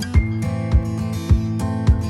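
Background music: guitar-led instrumental with a steady beat of about 100 beats a minute.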